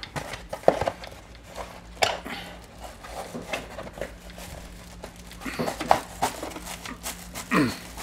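Foam insulation panel being handled and pushed into the gap beside a window air conditioner: scattered knocks and rubbing, with a short squeak near the end as the foam is wedged tight against the frame.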